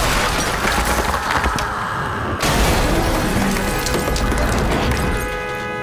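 A body crashing through a wall and landing on a car: breaking plaster and shattering glass, with a second sudden crash about two and a half seconds in as the car roof caves in. Dramatic score music plays under it and holds steady sustained notes near the end.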